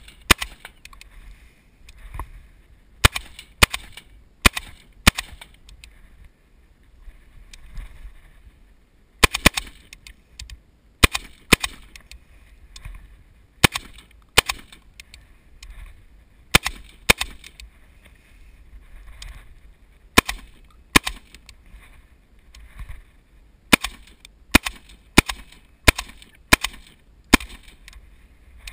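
FN SCAR 16S rifle in 5.56 mm fired semi-automatically: about two dozen sharp shots in strings of a few rounds each, roughly half a second apart, with pauses of a few seconds between strings.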